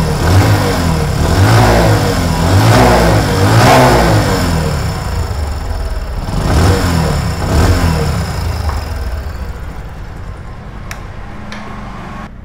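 Bajaj Discover's single-cylinder four-stroke motorcycle engine being blipped on the throttle, rising and falling about six times, then settling back to idle. Each rev picks up very smooth after the carburettor has been tuned and the idle set at 1200 rpm, with no stalling.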